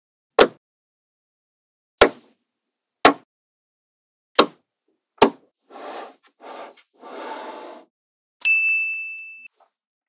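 Magnetic balls snapping together in five sharp clicks spaced about a second apart. Three short noisy bursts follow, then a single bright ding that rings for about a second near the end.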